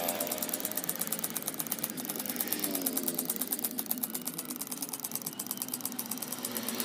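A small power tool running with a fast, even rattle, about ten pulses a second.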